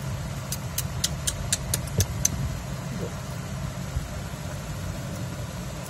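Domestic cat purring, a low steady rumble, while being stroked. About half a second in, glass bangles on the stroking wrist clink sharply about eight times in under two seconds.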